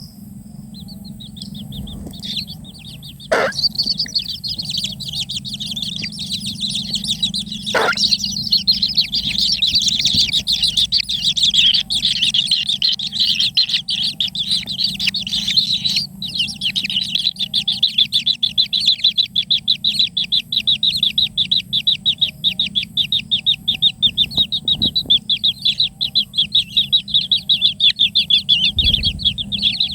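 Kingfisher nestlings begging, a dense chorus of rapid, high-pitched chirps that starts about a second in and grows louder and more insistent. Two brief sharp sounds cut through early on.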